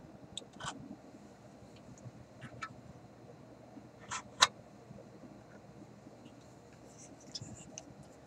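Scattered light clicks and taps of a small hand tool working on the wire and mechanism of a tube stereo's FM tuner, with one sharp click about four and a half seconds in and a run of small ticks near the end.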